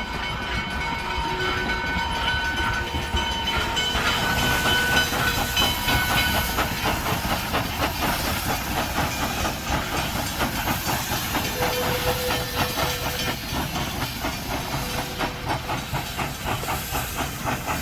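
A train running past, with a horn's tones lingering in the first few seconds, then a steady, rhythmic clatter over a hiss.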